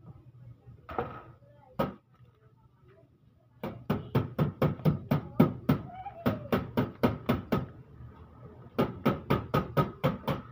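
Rapid hammering: sharp knocks at about four or five a second, in two runs separated by a short pause.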